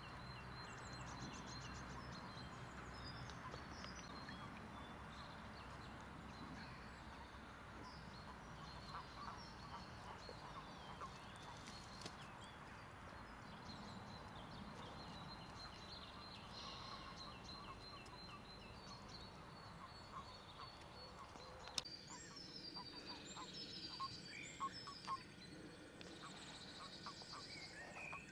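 Toads in a pond giving short croaking calls, some in quick runs, over a soft steady background. Faint birdsong sits higher up.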